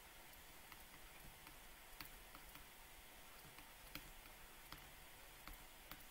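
Near silence with faint, irregular ticks of a stylus pen tapping a tablet screen during handwriting, several short clicks spread over a few seconds above a faint hiss.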